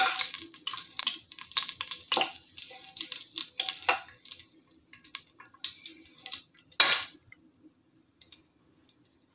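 A spoon stirring whole spices in oil in a pressure cooker, scraping and clinking against the pot in quick strokes for the first four seconds, then more sparsely with one loud knock near seven seconds.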